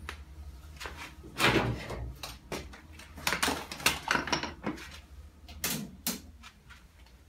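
Irregular knocks and metallic clatter from tools and steel bodywork being handled and moved, a dozen or so separate hits of varying loudness.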